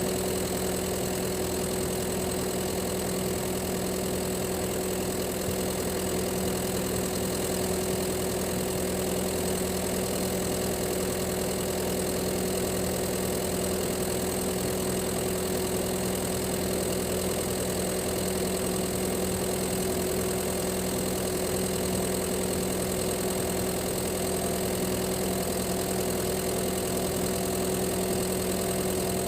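Komatsu PC138 excavator's diesel engine idling steadily, running on its freshly calibrated injection pump and injectors.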